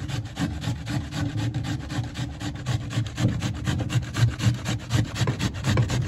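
Raw pumpkin being grated on a metal box grater: rapid, regular rasping strokes, several a second.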